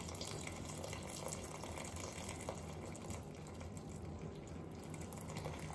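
Milk pouring in a steady stream through a steel strainer into a pan, a faint continuous liquid splash.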